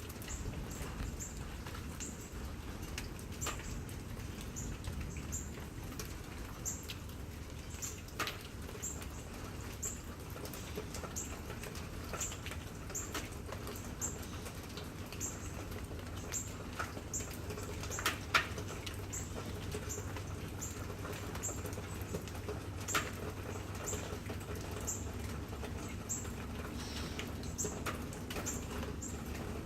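Rain dripping and pattering, with sharp drip clicks now and then, the loudest about two-thirds of the way in, over a steady low rumble. A thin high chirp repeats over and over, about once or twice a second.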